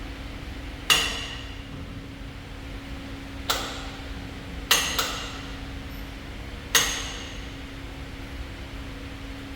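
Sharp metallic knocks, five in all with two in quick succession near the middle, each ringing briefly, over a steady hum.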